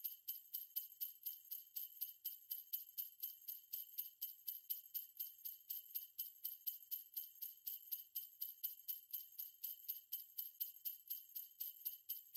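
Sleigh bells shaken in a steady, even rhythm, about four shakes a second, with a bright, high jingle.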